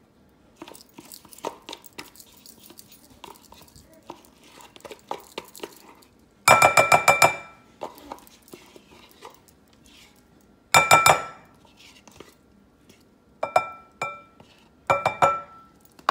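A spatula knocking rapidly against the rim of a glass mixing bowl to shake off whipped cream cheese, the glass ringing with each tap. Softer scraping and clicks come first, then several quick rounds of taps, the loudest about six seconds in and again near eleven seconds.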